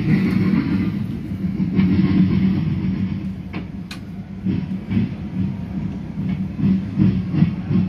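Recorded sound effect of a steam train running, a steady rumble with a couple of sharp clicks about halfway through, played through an interactive museum display's speaker. It starts abruptly when a button is pressed.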